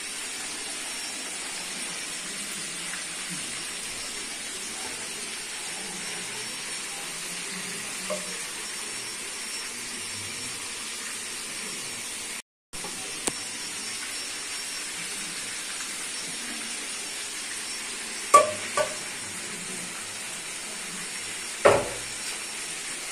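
Food deep-frying in hot oil: a steady sizzle that drops out for a moment midway. A few sharp knocks of a utensil against the pan come through, the loudest near the end.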